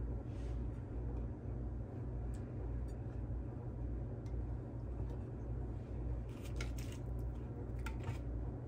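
Hands dredging chicken tenders in a dish of dry crumb coating: a faint gritty rustle of the crumbs, with a cluster of light scratchy clicks about six to eight seconds in, over a steady low hum.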